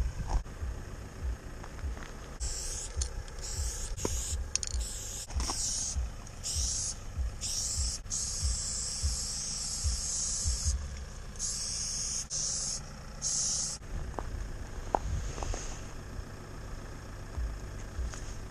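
Aerosol spray paint can hissing in a run of short sprays and a few longer ones, the longest about three seconds, stopping about 14 seconds in. A low rumble with soft thumps runs underneath.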